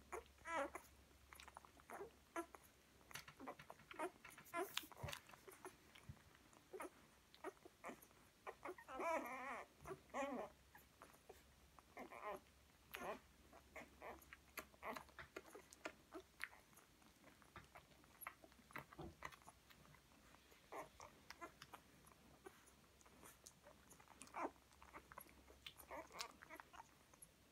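Newborn black and tan coonhound puppies nursing: soft, scattered suckling and smacking clicks, with one puppy giving a brief wavering whimper about nine seconds in.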